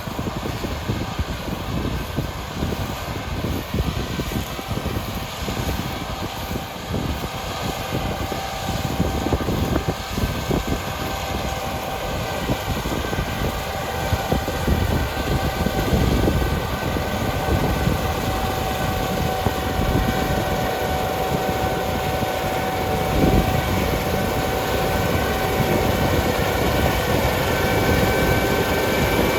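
Combine harvester running steadily while cutting, with a thin, steady high whine over an uneven low rumble.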